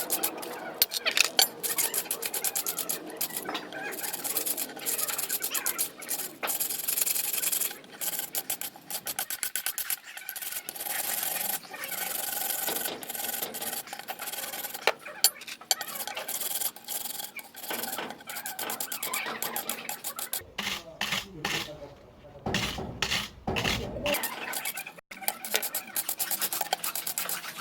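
Rapid, repeated hand scraping and rubbing on a car starter motor's parts to clean off caked grime, with a short low rumble about three-quarters of the way through.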